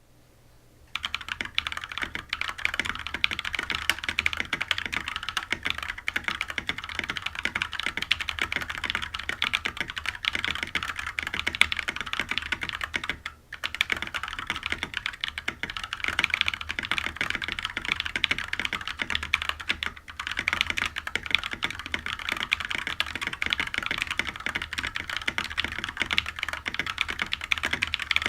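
Fast, continuous typing on a GMMK TKL mechanical keyboard with unlubed Holy Red Panda tactile switches (Halo Clear stems in YOK Red Panda housings, 67 g springs) and PBT keycaps, over a steady low hum. The typing starts about a second in and breaks off briefly twice, once around the middle and again about two-thirds of the way through.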